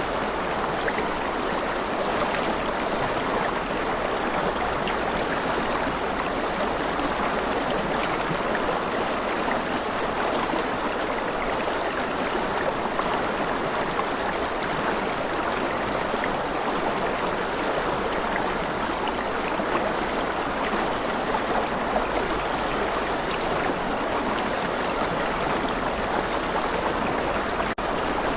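Rushing river: a steady, even rush of flowing water, with a split-second dropout near the end.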